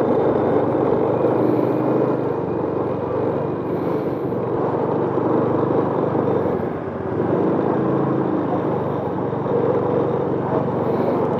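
Motorcycle engine running steadily at low riding speed, heard from the rider's seat, its note shifting a little with the throttle.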